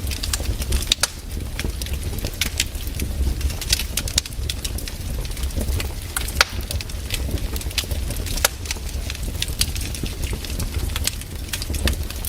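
Wood fire crackling: irregular sharp pops and snaps over a steady low rumble, with one louder pop about six seconds in.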